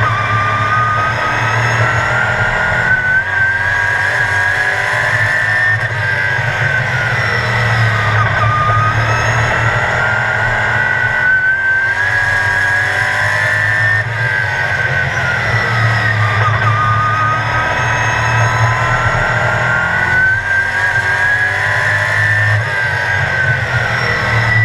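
Onboard sound of a sportsman race car's engine at racing speed on an oval, heard from inside the car. The revs climb along each straight and drop into each turn, about three times, in an even lap rhythm.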